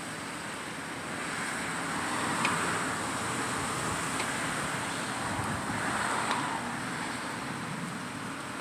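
Steady rushing noise of strong wind at around 31 mph, swelling louder twice, about two and six seconds in.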